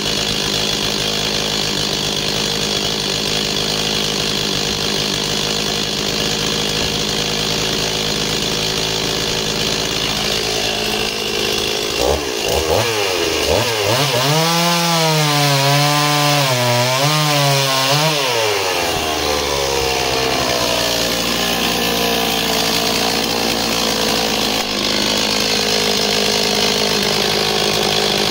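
Stihl MS260 two-stroke chainsaw idling. About halfway through it is opened up to full throttle and cuts a disc off a small log, the engine note wavering under load for about six seconds. It then drops back to idle.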